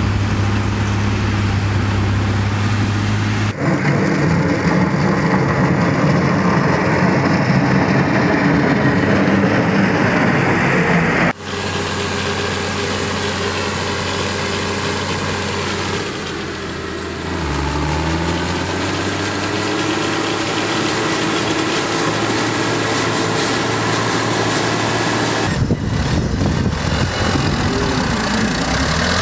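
Farm tractor engines working under load while pulling manure spreaders, in several clips joined with sudden changes in sound. Around the middle, a high whine dips and climbs back as the engine speed changes; near the end, engines idle.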